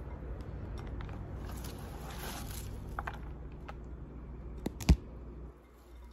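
Chopped cabbage being scraped across a cutting board by hand and dropped into a glass bowl: soft rustling and scraping with a few light clicks. A single sharp knock near five seconds in is the loudest sound.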